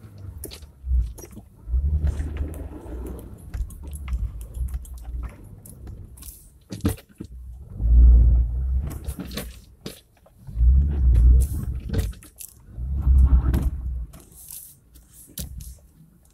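Daihatsu Terios picking its way through deep snow ruts, heard from inside the cab: irregular low rumbles and crunching as the tyres bite into snow, coming in surges about 2, 8, 11 and 13 seconds in, with scattered knocks and creaks in between.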